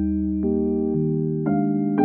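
Background music: keyboard chords held and changing about twice a second over a low, steady bass note.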